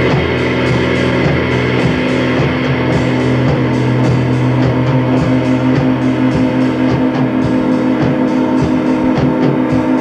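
Rock music: guitar and drum kit playing over a steady droning hum, with a running vacuum cleaner used as one of the instruments.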